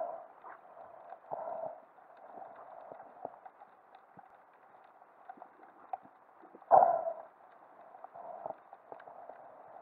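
Muffled underwater sound heard through a camera's waterproof housing while freediving: a low hiss with scattered faint ticks, and one louder, brief rushing burst about seven seconds in.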